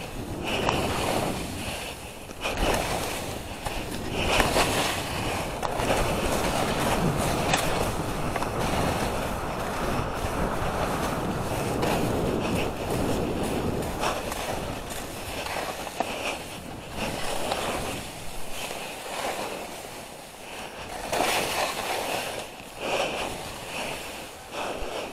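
Skis running through chopped-up powder snow, a continuous rushing hiss that swells and eases through the turns, mixed with wind on the microphone.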